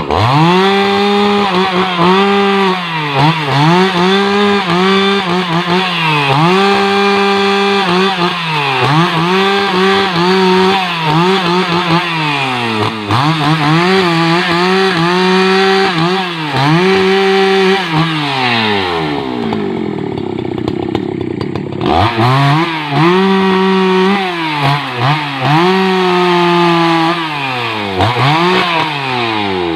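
Husqvarna 288XP two-stroke chainsaw cutting rubberwood logs, the engine revved up to full throttle and let back down over and over, each burst lasting a second or two. A little past the middle it drops to a lower, quieter run for a few seconds, then revs up again.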